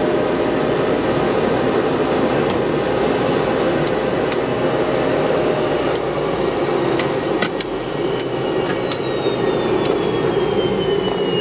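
Gazelle helicopter's Turboméca Astazou turboshaft running with a steady high turbine whine that, about six seconds in, starts a long falling glide in pitch as it spools down after shutdown. Sharp clicks come every second or so over the second half.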